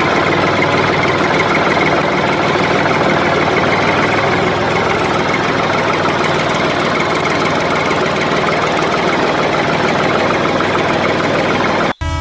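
Tractor engine running steadily, then cutting off sharply near the end as a train horn starts.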